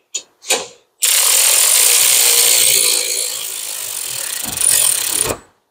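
Cordless electric ratchet running for about four seconds on a brake caliper bolt, after a few light clicks, then stopping abruptly.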